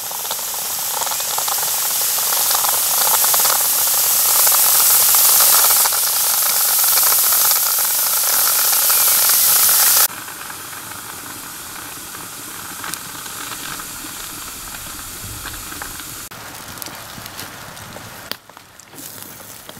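Hot water running from a copper samovar's tap into a metal teapot: a loud, steady rushing hiss that grows louder for about six seconds and stops abruptly about ten seconds in. After that only a much quieter hiss with a few faint clicks remains.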